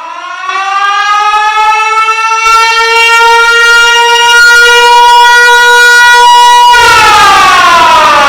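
'Cow laser' sound effect: a loud pitched tone with many overtones rises over the first two seconds and then holds steady. Near the end it turns harsh and noisy and falls steeply in pitch.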